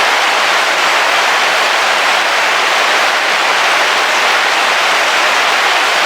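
Heavy rain falling on the roof of a car, heard from inside as a steady, dense hiss with no thunder.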